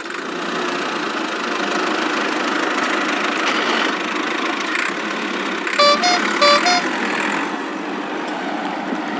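Cartoon vehicle engine sound effect running steadily, with a horn beeping twice, two rising notes each time, about six seconds in.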